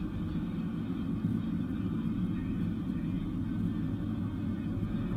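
Steady low rumble of a car driving along a paved road, tyre and engine noise heard from inside the cabin.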